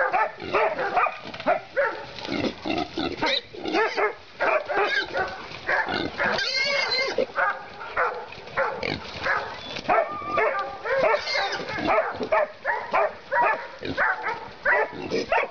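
Pack of East Siberian Laikas barking hard and without pause as they bay a wild boar, mixed with the boar's squeals and grunts. A long, high, wavering squeal comes about six seconds in.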